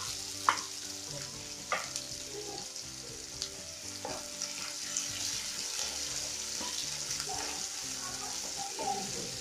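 Sliced onions and green chillies sizzling in hot oil in a pan while a wooden spatula stirs them, knocking against the pan a few times.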